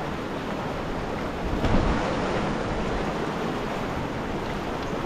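Steady rush of flowing creek water, an even noise with no pitch. A brief low thump about two seconds in.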